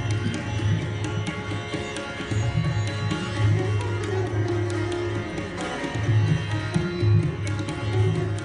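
Handmade tabla pair played by hand in a fast stream of strokes: sharp ringing strokes on the small right-hand drum over booming bass strokes on the left-hand drum, whose pitch moves up and down. A sitar plays sustained notes alongside.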